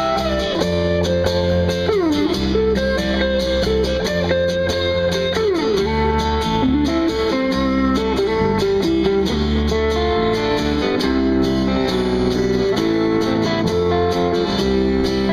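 Live band music: strummed guitars over a steady bass line. A lead guitar slides down in pitch about two seconds in and again about five seconds in.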